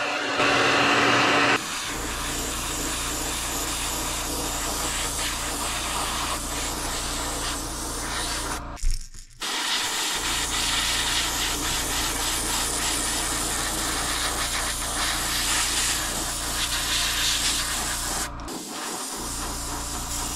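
A heat gun blows loudly for about the first second and a half. Then an airbrush sprays thinned fluorescent orange paint in a steady hiss over a low hum, broken by two brief stops about 9 and 18 seconds in.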